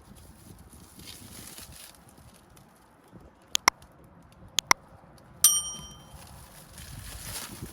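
Cardboard packaging being handled and pulled off wheels, rustling, with two quick pairs of sharp clicks in the middle and then a single metallic clink that rings briefly.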